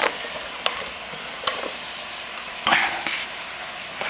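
Clear plastic hedgehog exercise ball rolling across a hardwood floor: a steady rolling hiss with a few light knocks and one louder clatter about two-thirds of the way through.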